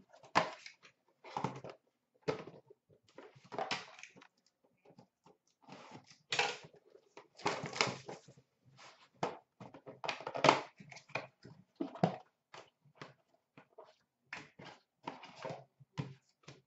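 Small cardboard puck box being handled and opened, its flaps pulled back and its contents taken out: a run of irregular rustles, scrapes and knocks of card and packaging.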